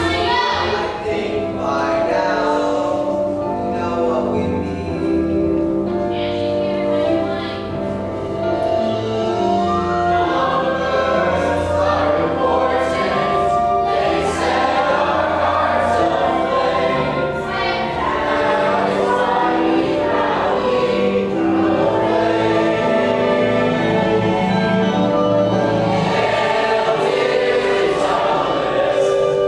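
A youth cast singing a musical-theatre song together in chorus.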